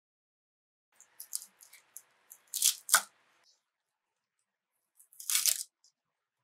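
A chef's knife slicing through spinach leaves and stems on a wooden cutting board: a run of crisp crunching cuts with two sharp cracks about three seconds in, then one more cut about two seconds later.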